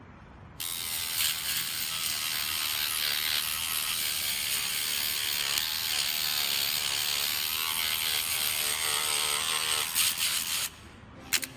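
Homemade 12V DC motor tool running under load, a steady gritty hiss that starts about half a second in and cuts off suddenly near the end.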